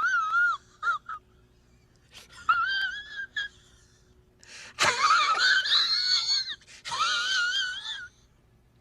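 A high-pitched, wavering, wail-like cry, heard in several separate bursts with short gaps between them; the longest and loudest comes about halfway through.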